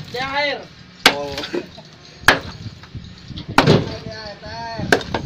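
Hammer striking a precast concrete pile, four hard blows about a second and a quarter apart. Each blow knocks concrete off the pile to break it open for cutting.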